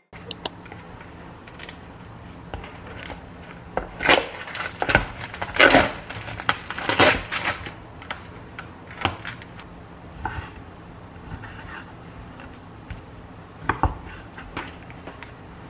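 Kitchen food-preparation handling sounds: scattered clicks and knocks of utensils and dishes, with a few louder rustling or crunching bursts in the first half.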